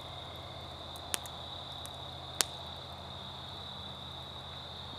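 Steady high-pitched trill of an evening insect chorus, with two sharp clicks, about one second and two and a half seconds in, the second louder.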